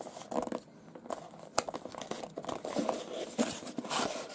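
Small cardboard box being handled and opened by hand: irregular rustling and scraping of cardboard, with a sharp click about one and a half seconds in and a louder rustle near the end.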